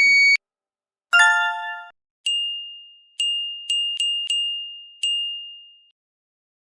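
A warning light's built-in buzzer sounding a steady high beep that cuts off just after the start. About a second later comes a short electronic chime, then six bright dings at one pitch, each ringing out.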